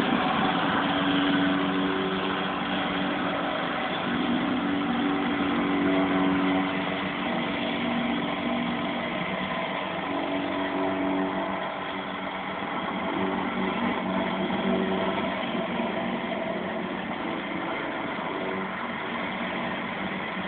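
Wacker DPS 2360 vibratory plate compactor running steadily. Its single-cylinder Hatz diesel engine drives the plate, which vibrates over crushed gravel to compact the base for paving.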